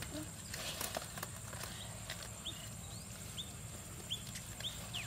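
Scattered clicks and taps of fish and net being handled on a plastic tarp, with a small bird chirping several short notes in the second half.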